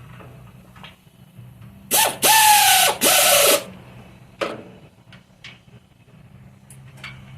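Pneumatic air ratchet run in three quick bursts about two seconds in, its motor whine sagging in pitch during each burst, snugging up exhaust bolts over new gaskets.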